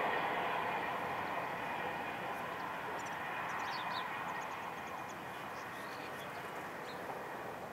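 Distant jet airliner engines: a steady rushing roar with a faint whine, slowly fading. A few bird chirps come about midway.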